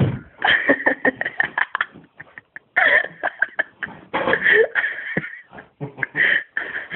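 A person's voice in short, irregular bursts of coughing, laughter and indistinct vocal sounds rather than clear words.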